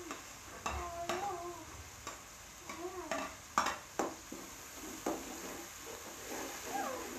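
A metal spoon scraping and clanking against an aluminium cooking pot while chopped tomatoes and green chillies are stirred into hot frying masala, with a faint sizzle. The knocks come irregularly, about one every half second to second.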